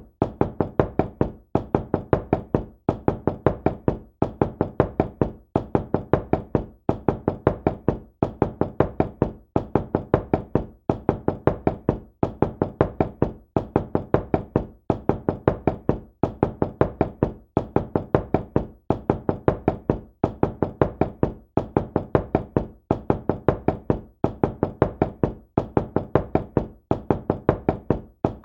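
Knocking on a door: quick runs of about four knocks, each run followed by a brief pause, repeating evenly about every second and a bit without letting up.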